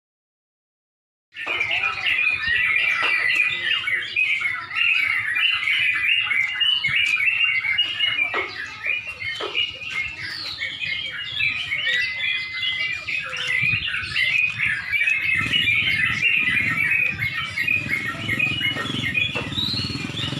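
Many yellow-vented bulbuls (trucuk) singing at once, a dense, overlapping chatter of short chirps and whistled notes that starts suddenly about a second and a half in. A low murmur joins under the birdsong in the last few seconds.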